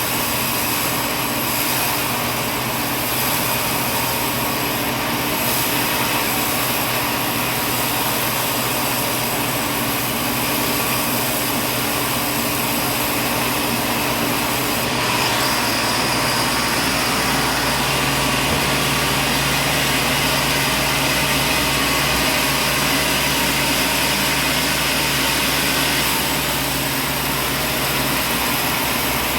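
Sawmill machinery running steadily: a loud, even mechanical noise with a low hum that changes pitch about halfway through.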